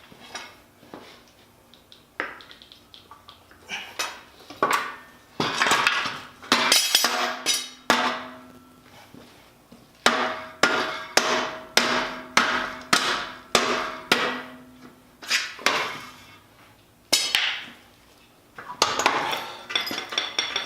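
Hammer blows on metal, coming in irregular runs of sharp strikes, some leaving a brief metallic ring; through the middle stretch the blows come steadily, a bit under two a second.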